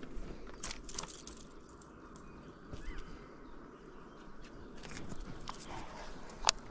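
Scattered small clicks and knocks over a steady low background noise, with one sharp, louder click about six and a half seconds in.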